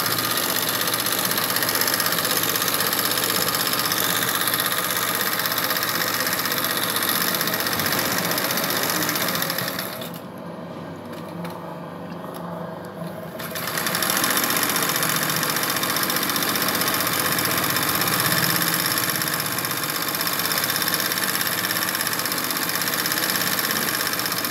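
Electric sewing machine running steadily, stitching machine embroidery through cotton fabric held in a wooden hoop. The sound drops away for about three seconds near the middle, then the machine runs again.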